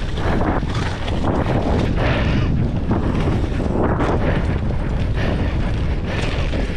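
Wind rushing and buffeting on the camera microphone of a mountain bike ridden fast along a dirt trail, a steady low rumbling roar.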